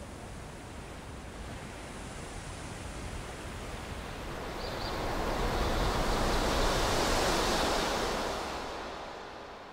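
Outdoor rushing noise that swells about halfway through and fades away near the end.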